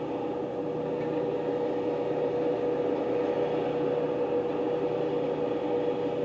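An engine running steadily at idle, a constant drone with a steady mid-pitched hum.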